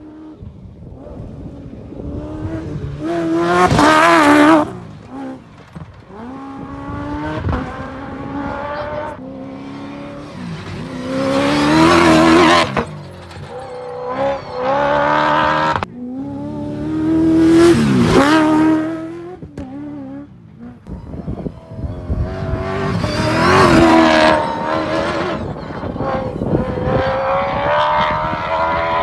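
Cross-country rally cars racing past one after another, about four loud passes, engines revving hard as each car approaches and the pitch dropping as it goes by.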